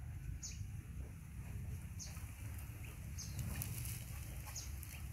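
A bird repeating a short, high, falling chirp four times, about every second and a half, over a low steady rumble.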